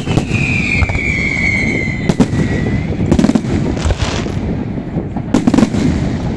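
Fireworks display: aerial shells bursting over a continuous low rumble, with sharp bangs about once a second. Over the first few seconds a long whistle sounds, falling slightly in pitch.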